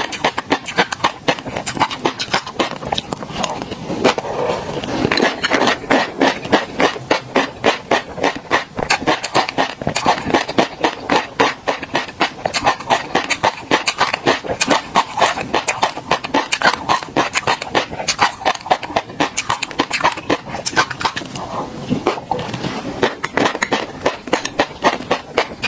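Close-miked mouth sounds of chewing a mouthful of black tobiko (flying fish roe) with garlic cloves: a dense, steady crackle of tiny wet pops and clicks as the roe bursts between the teeth.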